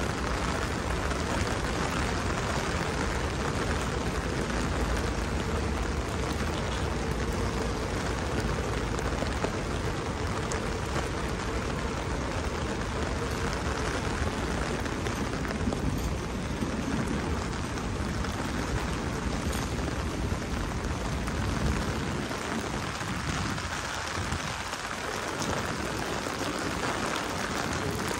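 Steady rain hissing on wet pavement and street, with a low rumble underneath that drops away about three quarters of the way through.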